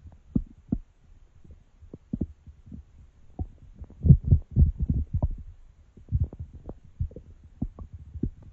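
Human stomach growling: irregular low gurgling pops and short bubbling rumbles, busiest about four to five seconds in.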